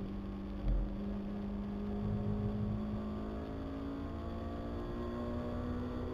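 Car engine running on a circuit, heard from the car, its tone climbing gently as it pulls, with a single low thump about a second in.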